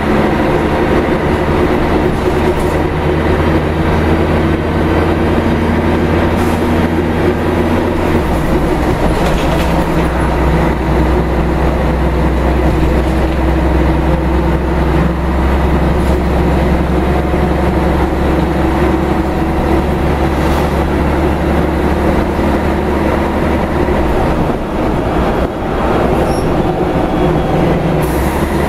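Rear-mounted Scania DSC1171 11-litre six-cylinder turbo diesel engine running under way, heard from inside the bus cabin as a steady, loud drone. Its low note changes abruptly about eight seconds in and again a few seconds before the end.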